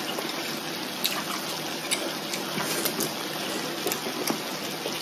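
Hotpot broth bubbling at a boil in an electric hot pot: a steady watery hiss, with a few light clicks of chopsticks on the pot.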